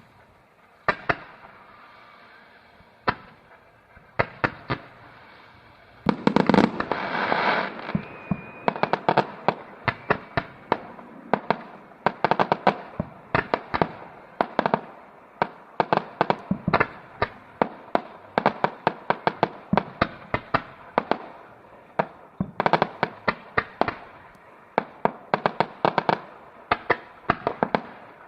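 Fireworks going off. A few separate bangs at first, then a louder rushing burst about six seconds in, followed by rapid, near-continuous bangs and crackles, several a second.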